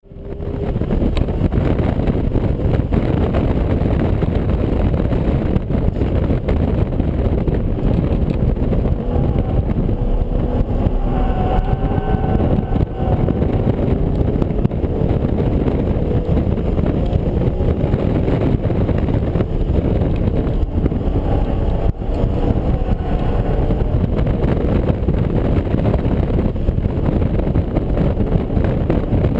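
BMW Z4 M Coupe's inline-six engine running hard on track, heard from inside the cabin under a heavy roar of road and wind noise, its pitch rising and falling with throttle and gear changes. The sound fades in within the first second.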